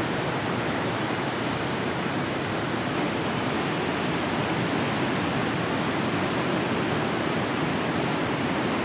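Dettifoss waterfall, a very large volume of water plunging about 45 m into its canyon, heard as a loud, steady rushing.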